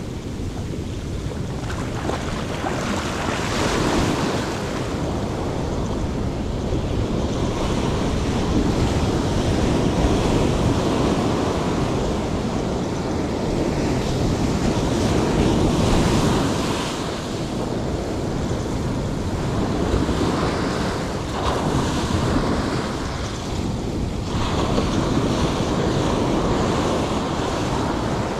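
Big ocean waves breaking and washing up a steep beach, the surf swelling and easing every several seconds, with wind buffeting the microphone.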